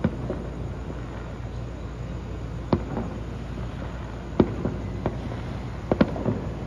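Aerial fireworks bursting in a series of irregular, sharp bangs, with a few coming close together near the end.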